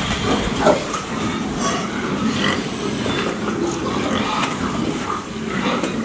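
A pen full of domestic pigs grunting and squealing at once, short calls overlapping in a steady din.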